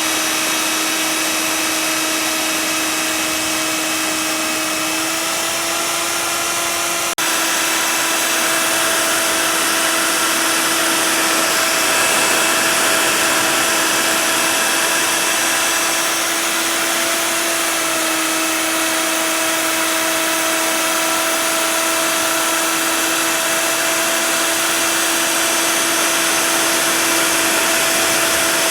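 CNC router spindle running steadily with a high whine over a hiss while milling expanded PVC sheet. The whine's pitch shifts slightly a few times, and there is a brief break about seven seconds in.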